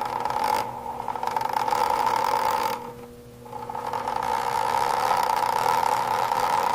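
Small electric motor running with a steady whine, dropping away for a moment about three seconds in and then spinning back up.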